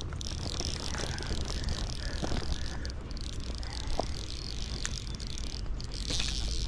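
Fly reel's click drag ratcheting in a fast, buzzing run of clicks while a hooked trout is played on the rod. It is strongest in the first few seconds and again near the end, over a low rumble of wind on the microphone.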